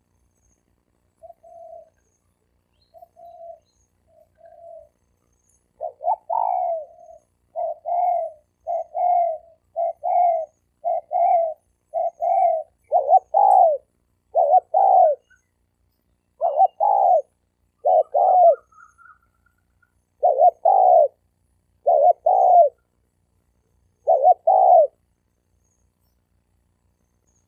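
Spotted doves cooing in a rival, challenging exchange between males: a few soft short coos, then from about six seconds in a fast run of loud coos about one a second, spacing out and stopping a couple of seconds before the end. Faint high chirps sound now and then above the coos.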